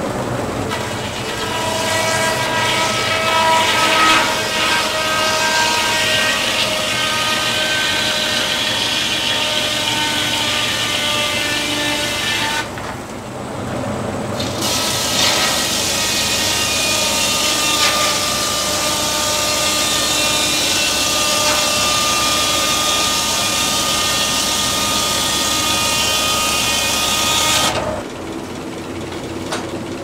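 Large blade of an antique circular sawmill sawing through a pine log: a loud, steady saw noise with several high ringing tones. It drops away for about two seconds partway through, starts again for a second cut, and falls off near the end as that cut finishes.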